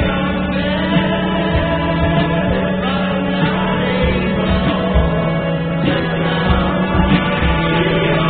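Background music: singing voices over a steady beat.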